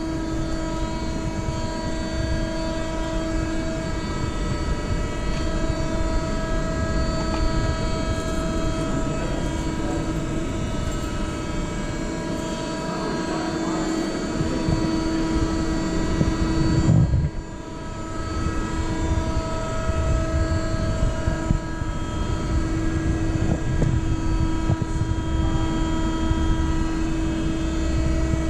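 Tsugami Mercury T-NCM 45/160 CNC lathe running with a steady, even machine hum, a few pitched tones over a rushing noise. The sound dips briefly about two-thirds of the way through, then carries on the same.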